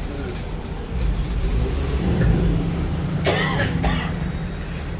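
Steady low rumble of street traffic, with a short cough about three seconds in.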